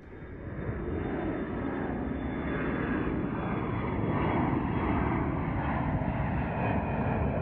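Jet aircraft engine noise: a steady, dense rumble that fades in over about the first second.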